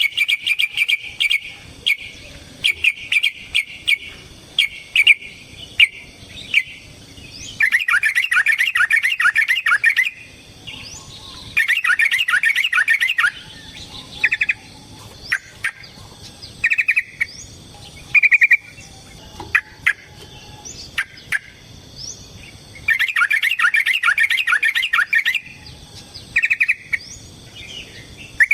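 Yellow-vented bulbul (trucukan) calling. Three bursts of fast, rapidly repeated chattering notes, each about two seconds long, come about a quarter, two fifths and four fifths of the way through. Short single calls fall between them.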